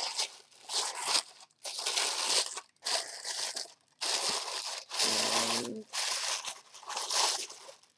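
Paper packaging crinkling and rustling in a series of handling bursts as a box is unpacked by hand.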